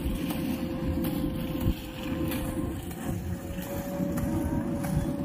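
Wind buffeting the microphone, an uneven low rumble, with a faint steady hum over it.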